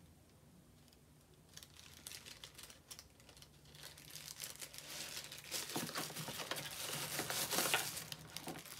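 Packaging crinkling and rustling as camera accessories are unwrapped by hand, with many small crackles. It is faint for the first second or so, then grows louder toward the end.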